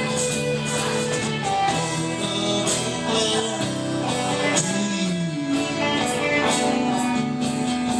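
A band playing, with guitar to the fore over drums; a note bends up and back down about five seconds in.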